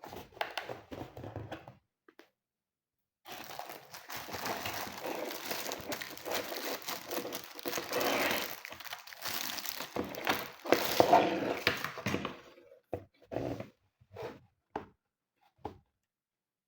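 Packaging being unwrapped by hand, crinkling and rustling steadily for about nine seconds, then a few short rustles near the end.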